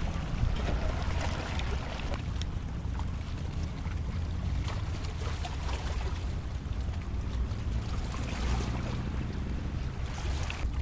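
Wind buffeting the microphone over open sea water: a steady low rumble under a hiss of wind and water, with scattered faint ticks.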